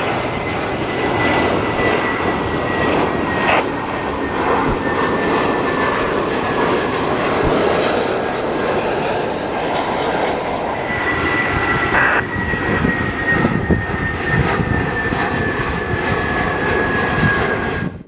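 Jet airliner arriving to land, its engines a loud rushing roar with a high whine that slowly falls in pitch as it passes. The sound cuts off suddenly near the end.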